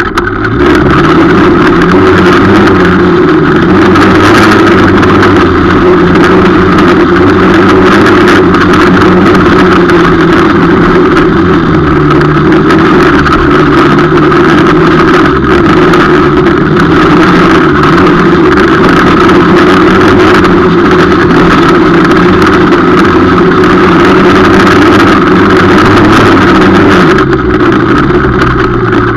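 250 cc quad ATV engine running hard under throttle, heard loud and close from a camera mounted on the machine. Its pitch rises and falls as the throttle is worked, with a brief lift off the throttle just after the start.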